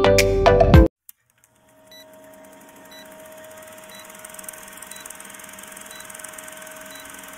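Intro music cuts off about a second in, followed by a film-projector countdown sound effect: a steady projector whirr and hiss with a short high tick once a second.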